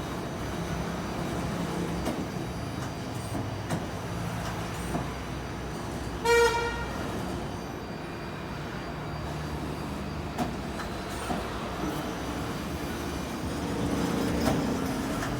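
Mori Seiki SL-20 CNC lathe running, a steady machine hum with low tones that change pitch every few seconds and a few light clicks. A short, loud beep sounds about six seconds in.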